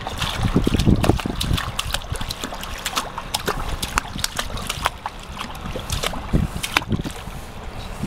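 Shallow pool water splashing and sloshing in many small, irregular splashes as a baby steps and paddles her hands in it. Low rumbles come about a second in and again just past six seconds.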